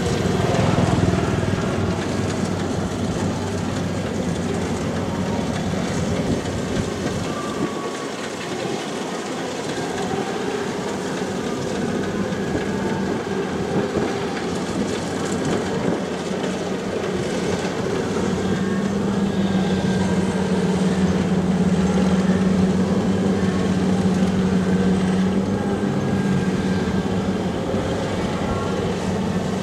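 Kubota combine harvester running steadily while harvesting rice, its engine and threshing machinery giving a continuous mechanical drone with a steady hum that swells louder past the halfway point.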